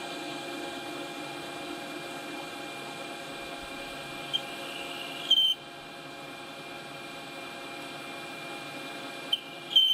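Metal lathe running with its spindle turning, a steady hum with many even tones, while a facing and turning tool is fed along the spinning workpiece to cut a chamfer. Short high-pitched squeals from the tool cutting come about five seconds in and again near the end.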